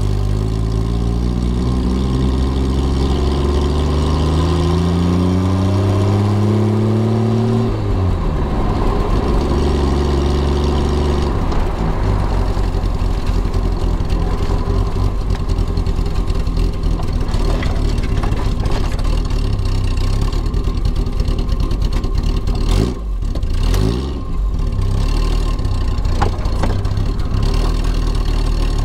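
Engine of a classic Triumph sports car, heard from inside the cabin while driving. It accelerates through a gear with its pitch rising for about seven seconds, drops at a gear change about eight seconds in, then runs steadily, dipping briefly twice a little over twenty seconds in.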